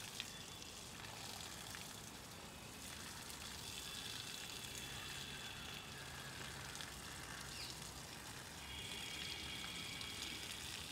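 Faint outdoor background: a low steady hiss, with faint high thin tones coming and going in the middle and again near the end.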